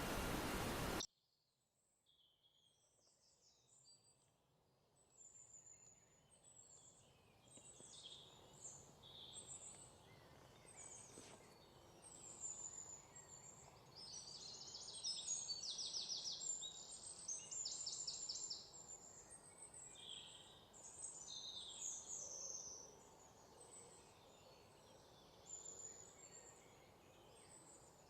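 Several forest songbirds singing and calling: many short high chirps and quick trills, busiest about halfway through, over a faint low background rush. It opens with about a second of loud, even rushing noise that cuts off suddenly.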